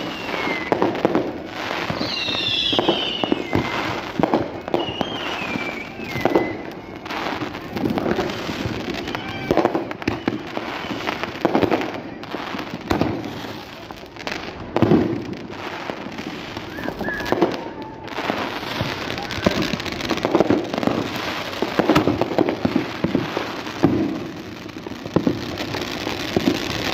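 Consumer fireworks going off one after another: aerial shells and firecrackers banging and crackling over and over, with a few falling whistles in the first several seconds.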